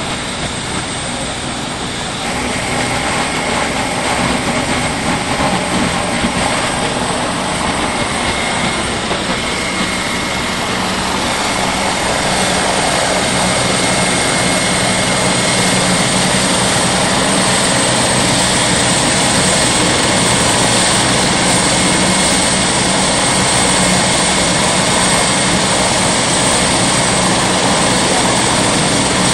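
Boston MedFlight medical helicopter running on the ground: a steady high turbine whine over a low hum that gets louder about two seconds in and again midway.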